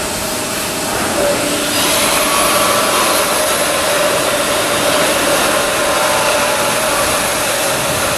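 Steady, loud rushing hiss of shipyard machinery, with a faint steady tone underneath; it gets louder about two seconds in.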